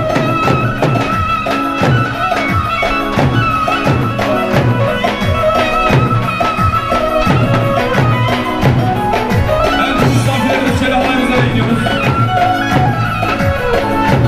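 Traditional Turkish folk dance music with a steady drum beat under a sustained melody line.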